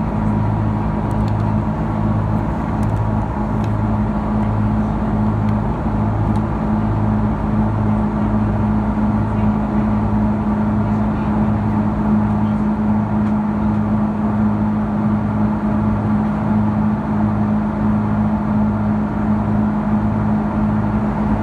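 Steady engine and airflow noise inside the cabin of an Airbus A330-200 airliner, with a low hum that wavers about once a second under a steady drone.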